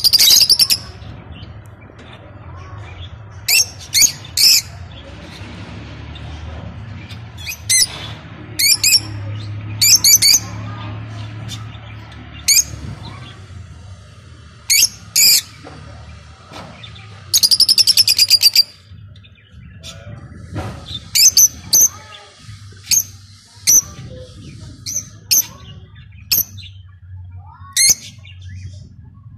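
Lovebirds giving shrill, high-pitched chirps and squawks in short separate bouts. There is a longer rapid chattering burst a little past halfway, then a run of quick single chirps near the end.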